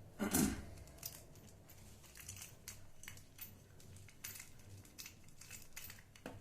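Parts and hardware being handled during assembly: a knock just after the start, then scattered light clicks and rustles.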